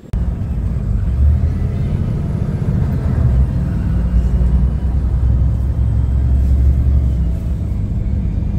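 Steady low rumble of a motor vehicle running, starting suddenly at the outset.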